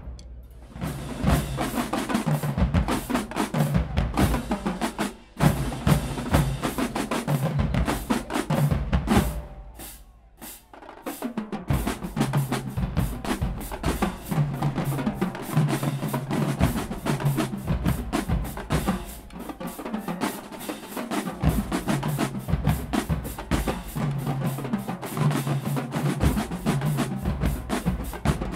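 Marching band drumline playing a cadence: snare drums, tenor drums, tuned bass drums and crash cymbals, all struck in a dense rhythm. The drumming drops away briefly about ten seconds in, then a new cadence starts.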